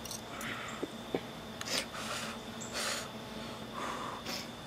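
A person eating from a plate with a fork, breathing in short noisy puffs about a second apart.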